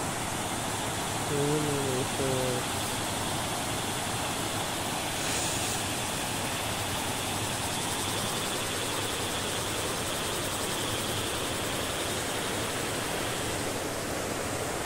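Steady rushing of water from a small waterfall pouring over a stone weir. A brief voice is heard about two seconds in.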